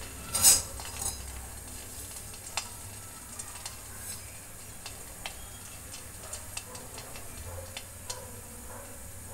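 Oil sizzling around a small test piece of semolina dough in a kadhai, with a brief louder burst of hiss about half a second in, then a steady sizzle with scattered pops. The sizzle and bubbling show the oil is checked and hot enough to fry.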